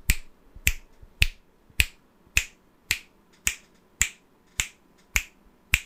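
Finger snaps, about two a second, moved around a Blue Yeti X condenser microphone set to its bi-directional (figure-eight) pattern; the snaps rise and fall in loudness with the hand's position, louder in front of and behind the microphone than at its sides.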